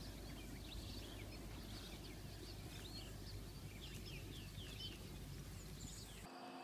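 Faint outdoor ambience: scattered short bird chirps over a low, steady background rumble. Near the end it cuts off abruptly to a quiet room hum.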